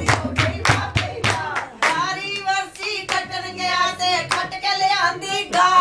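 Rhythmic hand clapping, about four claps a second; about two seconds in, a group of voices starts singing a Punjabi folk song over sparser clapping.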